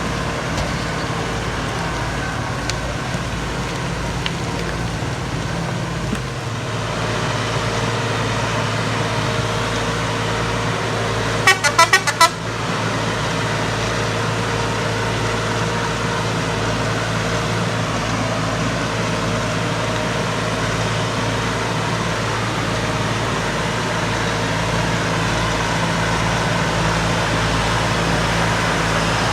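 Erkunt tractor's diesel engine running steadily, with a quick burst of several short horn toots about twelve seconds in.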